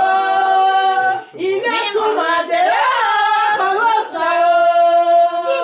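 A woman singing, holding long notes near the start and again near the end, with her pitch sliding up and down between them.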